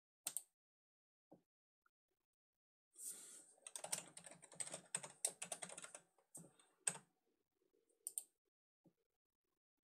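Computer keyboard typing: a quick run of keystrokes lasting about three seconds, with a few single clicks before and after it.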